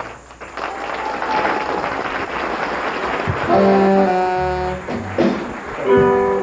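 Studio band playing brass-led music, sustained horn notes clearly heard over the second half, with audience applause over the first half.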